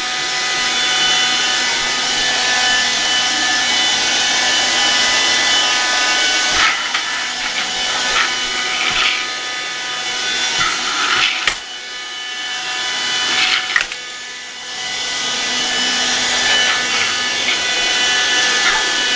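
A hard-floor vacuum cleaner running with a steady motor whine as it is pushed across the floor. Near the middle its sound dips briefly a couple of times, and a few knocks and scrapes come as it bumps and rubs along.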